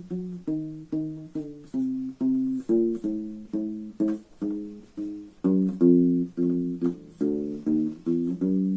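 Aklot 4-string fretless ebony bass ukulele being played: a steady run of single plucked notes, a little over two a second, each ringing briefly and dying away.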